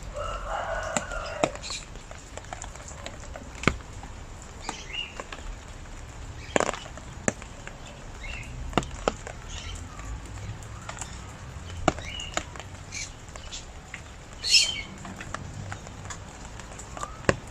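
Rain falling with scattered sharp drips, with short bird calls and chirps now and then.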